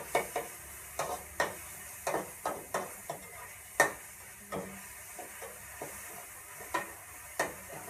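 Metal spatula scraping and clinking against a wok in irregular strokes while food is stir-fried, over a steady sizzle. The sharpest clink comes about four seconds in.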